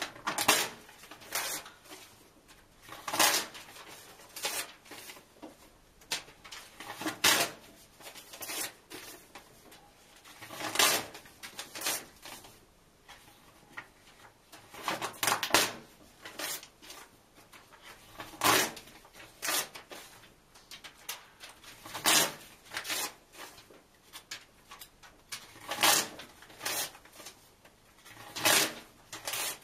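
Paper book pages being ripped out and torn in half by hand: short, sharp tearing rips, often two close together, repeating every few seconds.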